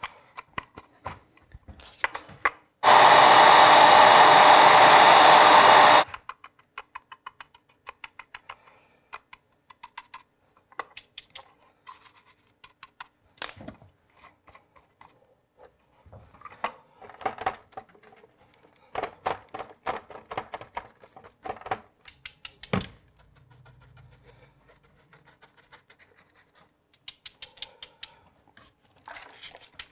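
A loud, steady rush of blown air for about three seconds near the start. Then many small dabs, scratches and taps of a chip brush and rag on the painted plastic of a Nerf rifle during weathering.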